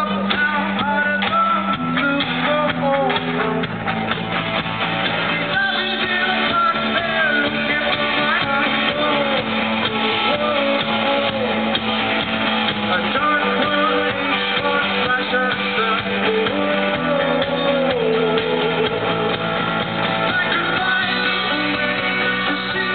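Indie rock band playing live: a singer's voice over electric guitars, bass and drums, the bass moving to a new note every few seconds. Low-quality recording from the audience.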